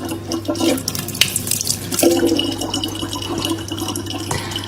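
Tap water running, splashing steadily, with a steady low hum underneath.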